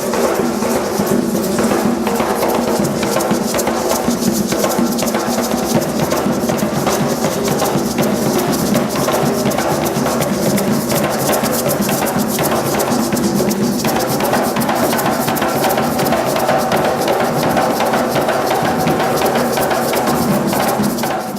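Ritual-style percussion music: fast, dense drumming and shaken rattles over steady held tones, stopping abruptly at the very end.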